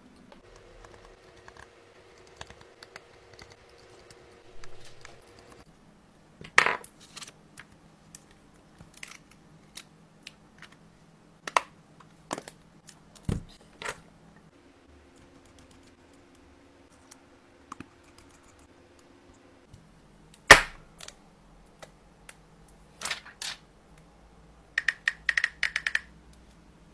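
Scattered sharp clicks and knocks from an iPhone being handled with long nails and small tools on a rubber mat, with one loud knock about three quarters of the way through. Near the end, a quick run of about eight clicks as the passcode is tapped in.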